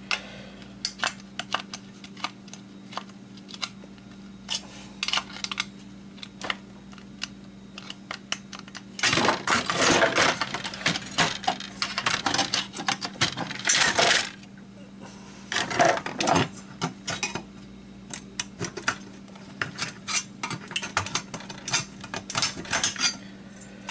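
A flathead steel screwdriver prying and scraping at a PlayStation 2's aluminium heat sink to work it loose: a run of sharp metal clicks and clinks, with bursts of dense scraping about nine to fourteen seconds in and again around sixteen seconds. A faint steady hum runs underneath.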